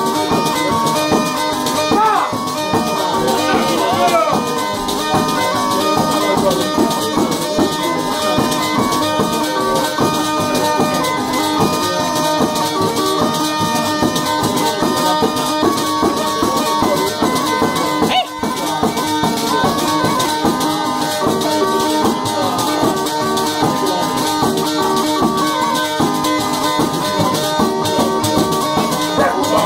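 Live folk dance music: a melody instrument playing quick runs over steady held drone notes, with jingling percussion keeping a fast, even beat.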